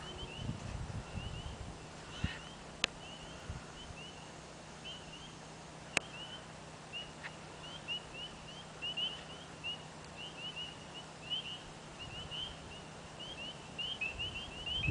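A chorus of frogs calling, with many short, high chirps overlapping in an irregular stream. Two sharp clicks cut in, about three and six seconds in.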